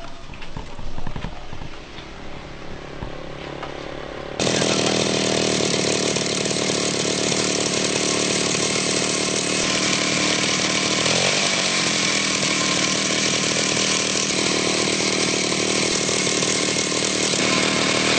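Small two-stroke chainsaw engine fitted to a bicycle, running loud and steady at high revs, coming in suddenly about four seconds in after quieter mixed noise, with a brief dip in revs midway.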